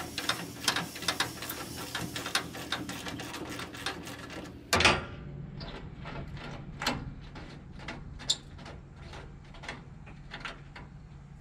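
Ratchet wrench clicking rapidly as bolts are backed out of a metal trailer rack, with one louder metal clunk a little before halfway. After it the clicks come slower and fainter.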